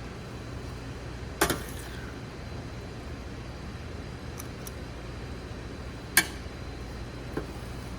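A serving scoop clinking against a food pan or container: one clink with a short ring about one and a half seconds in, a sharper one near six seconds, and a fainter tap near the end, over a steady low hum.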